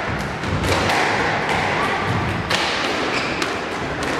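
Several sharp thuds and knocks on a squash court, about a second apart, over a steady background noise in the hall.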